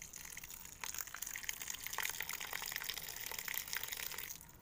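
A thin stream of water pouring into a metal pressure cooker, splashing onto sliced onions and spice powders; the pour stops abruptly near the end.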